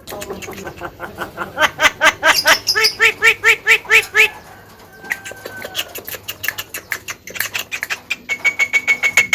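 Javan myna calling: a rapid run of repeated sharp notes at about four a second that grows louder, then a gliding whistled note, then more quick clicking notes near the end.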